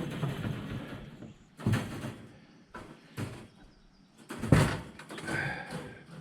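Wire rabbit cage panels knocking and rattling as they are handled during assembly, with two louder clanks, one about 1.7 seconds in and one about 4.5 seconds in, and a lighter knock between them.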